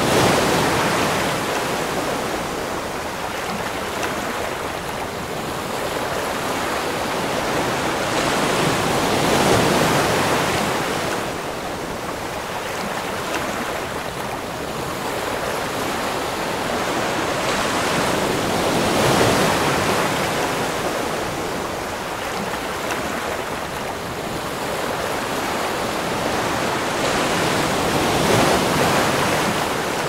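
Ocean waves washing ashore, the surf swelling and easing in slow surges about every nine to ten seconds.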